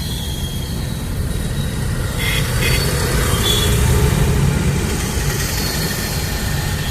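Bus running on the road, heard inside the cabin: a steady low rumble with irregular thuds and rattles from the body. It is the sign of failed air-suspension bellows, which the rider thinks have all gone, leaving the bus banging down on its leaf springs.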